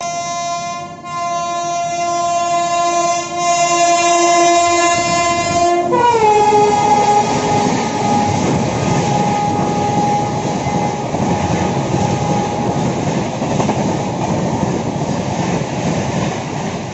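An express train's locomotive horn sounding a sustained chord of several tones, which drops in pitch about six seconds in as the locomotive passes. Then comes the loud rush and rumble of the coaches going by close at hand, with the horn still held faintly for a while. The sound cuts off abruptly at the end.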